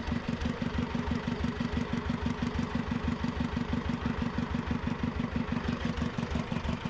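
Fishing boat's engine idling with a fast, even beat.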